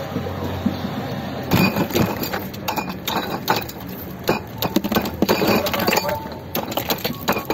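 Dishes, glasses and metal utensils clinking and clattering in quick irregular knocks from about one and a half seconds in, over a steady background noise.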